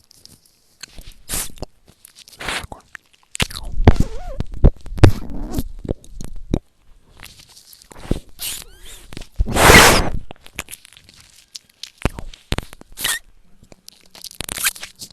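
Irregular bursts of loud, crackling noise close to the microphone, some short and some about a second long. The loudest come about four to five seconds in and again around ten seconds.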